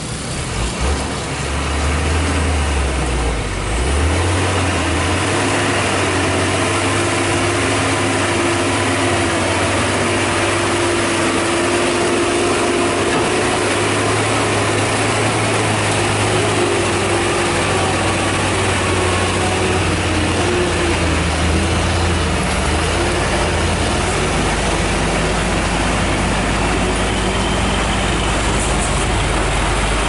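Hino dump truck's diesel engine running at low speed close by: a steady, heavy low drone that grows louder over the first few seconds as the truck comes through the bend.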